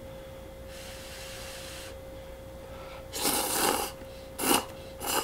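A person slurping instant cup noodles: a soft slurp of noodles early on, then a louder slurp of soup from the cup about three seconds in, followed by two short breaths. A steady faint hum runs underneath.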